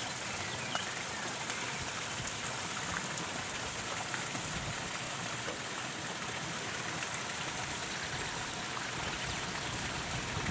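Water from a small garden waterfall splashing steadily into a pond.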